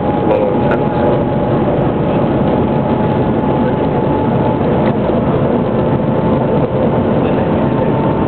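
Steady rushing noise inside the cabin of the Shanghai Transrapid maglev train running at high speed, with a thin steady whine through it.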